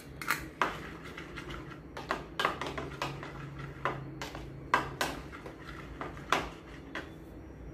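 A spoon clinking and scraping against a bowl while a thick sauce is stirred, in irregular taps about one or two a second, over a faint steady low hum.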